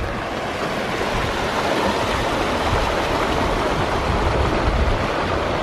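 Small mountain creek rushing over rocks and down a little cascade: a steady, even hiss of running water.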